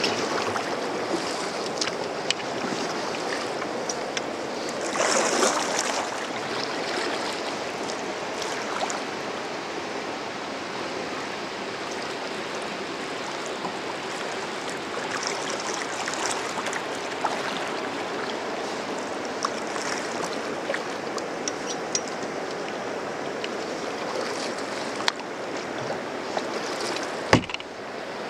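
River water rushing steadily around a drifting raft, with small ticks of water lapping on the hull. A brief louder surge of water about five seconds in, and a single sharp knock near the end.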